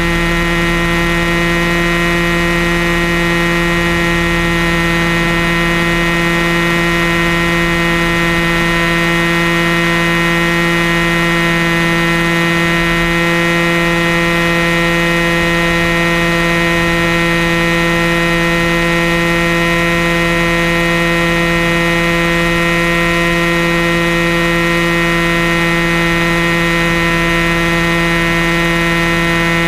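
Large Airstar Mongoose RC helicopter in flight, heard from a camera mounted on its nose: a loud, steady mechanical whine from its motor and rotor drive, holding one pitch.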